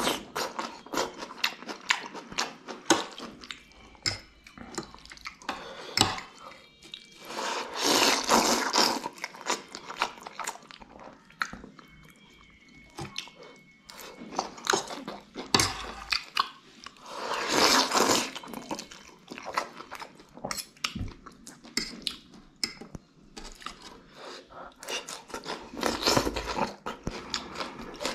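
Noodles and soup being slurped in long sucking rushes, three times, about nine seconds apart. Between slurps there is wet chewing and smacking, with small clicks of a fork and spoon.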